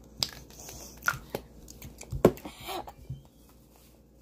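A girl's breathy mouth noises and exhalations as she reacts to something in her mouth, broken by a few sharp clicks or knocks, the loudest about two seconds in.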